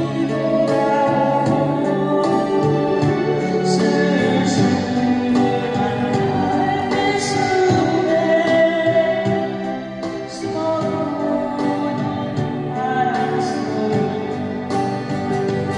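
A Korean ballad sung live with instrumental accompaniment: sustained sung vocal lines over a full backing.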